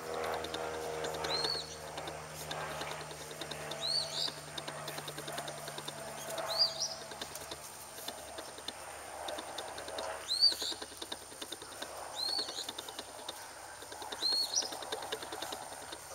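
A bird repeating a short, high, arched chirp every two seconds or so.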